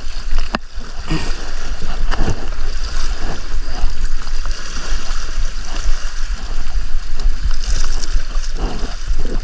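Wind buffeting the microphone in uneven gusts over the wash of waves on the shore, with a sharp click a little after the start.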